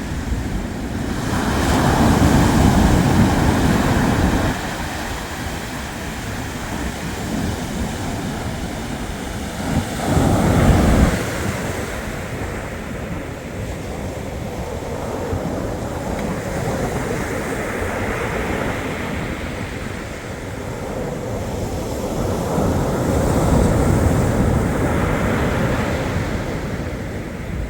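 Black Sea waves breaking on the shore and washing back, with three bigger breaks: one about two seconds in, one around ten seconds, and one near the end.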